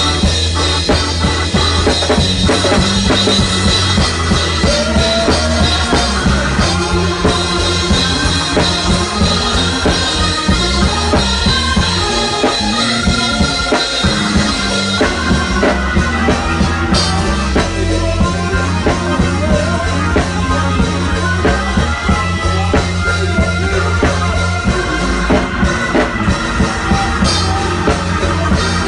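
Live church band music with a drum kit played close by: drums and cymbals over sustained low notes that shift in steps.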